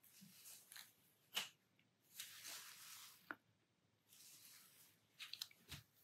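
Faint scratching of a fine-tipped pen drawing short strokes on sketchbook paper, with a few soft ticks in between.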